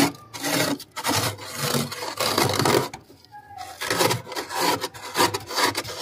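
Fingers scraping frost off the inside of a freezer compartment: repeated scraping strokes, with a brief pause about three seconds in.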